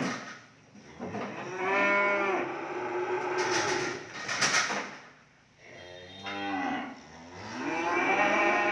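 Cattle mooing, three calls: a long moo starting about a second in, a shorter one around six seconds, and another long one near the end. A sharp knock comes right at the start.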